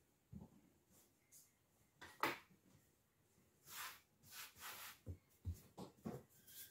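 Faint handling sounds of dough work on a floured table: scattered light taps and knocks, the sharpest a click about two seconds in, brief brushing sounds a little before and after four seconds, and two soft thumps a little after five seconds.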